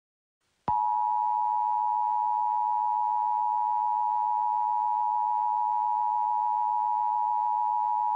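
Emergency Alert System two-tone attention signal (853 Hz and 960 Hz together), starting abruptly a little under a second in and holding one steady, loud, piercing chord. It announces that an emergency alert voice message follows.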